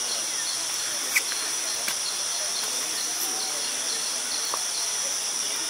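Steady night chorus of crickets and other insects, with one high chirp pulsing about four times a second. A couple of sharp clicks come about a second in and again just under two seconds in.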